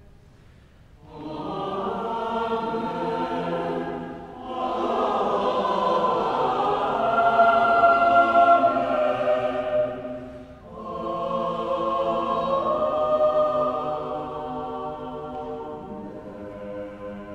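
Cathedral choir singing a sung response from a setting of the Preces and Responses in slow, sustained chords. It comes in three phrases, starting about a second in, around four and a half seconds and around eleven seconds, with short breaks between them. The last chord fades away gradually.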